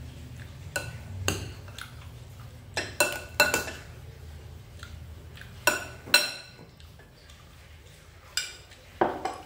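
Metal spoon clinking against ceramic bowls while salad is scooped. About ten sharp clinks, each with a brief ring, come in small clusters, the loudest around three and six seconds in. A steady low hum runs underneath.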